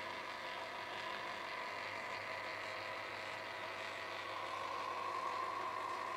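Hy-Gain HAM-IV antenna rotor's motor and gear train running steadily with a whine, which grows stronger about four seconds in. It runs smoothly, without hitches.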